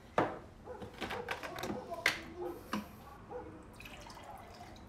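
A drinking glass and dishes being handled at a kitchen sink: a few sharp knocks and clinks. The loudest comes just after the start, with others about two and three seconds in.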